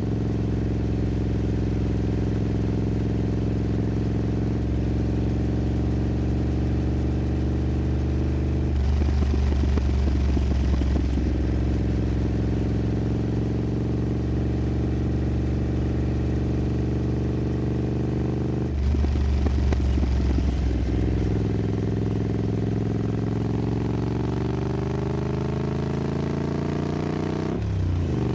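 Triumph Scrambler 900's parallel-twin engine through an aftermarket exhaust while riding, a steady exhaust note with two rougher, louder stretches. Late on the engine note climbs slowly and then changes abruptly, as at a gear change.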